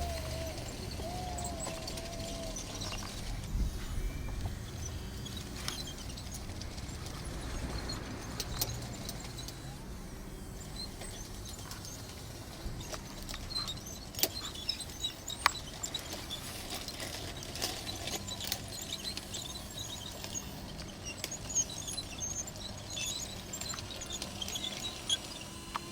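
3D-printed CAT D6 XE scale RC bulldozer at work in dirt: a wavering motor whine for the first couple of seconds, then a low running sound with scattered small clicks and scrapes of the tracks and soil.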